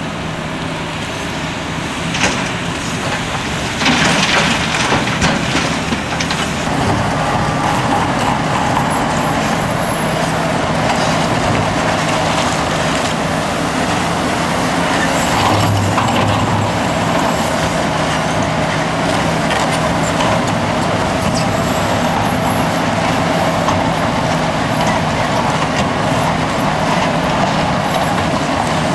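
Liebherr R974B crawler excavator running steadily under load as it works rocky spoil, with a loud clatter of rock and earth dropping into a dump truck's body about four seconds in.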